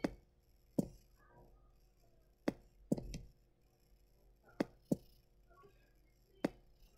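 A computer mouse clicking: about eight sharp, separate clicks spread unevenly, some in quick pairs.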